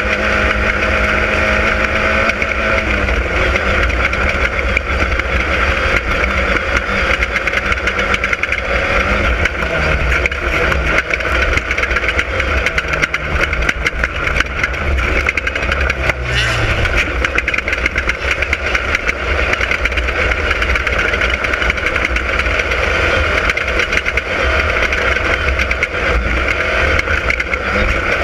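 Class 10 desert off-road race car's engine running hard throughout, its pitch stepping up and down in the first half as revs change, over a dense, constant clatter of rattles and knocks from the car.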